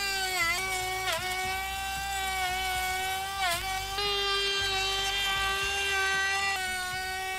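DeWalt 18V cordless compact router running at full speed with a high-pitched whine as it routs the edge of a planed 8x8 cm timber beam. Its pitch dips briefly a few times as the bit bites into the wood.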